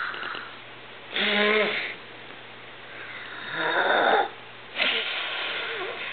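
A young child taking big, noisy breaths and blowing hard at a flameless candle: a gasping, half-voiced breath about a second in, another around three and a half seconds, then a longer hard blow near the end.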